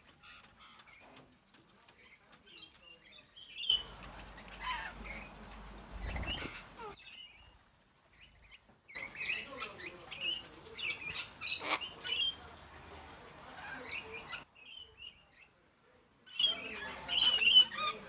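Wild birds calling with short, high chirps and squawks in three separate stretches with quiet gaps between. The loudest burst comes near the end, from rainbow lorikeets.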